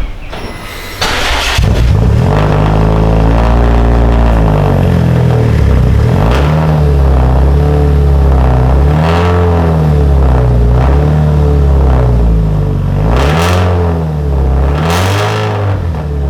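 Car engine being revved repeatedly, its pitch rising and falling over and over, about once every second and a half. It comes in suddenly a second or two in.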